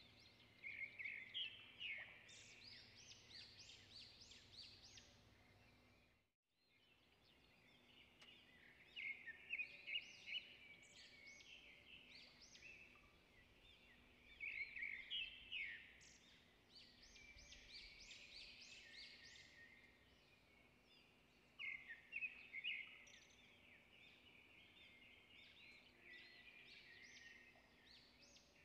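Songbirds chirping faintly in short bursts of rapid high notes, one burst every five to seven seconds, with scattered single chirps between.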